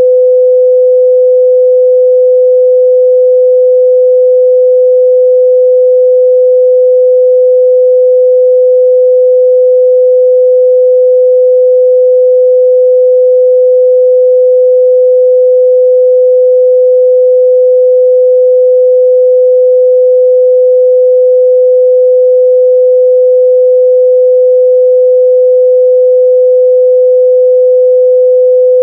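A pure 505 Hz sine-wave test tone, held steady and loud with no change in pitch or level.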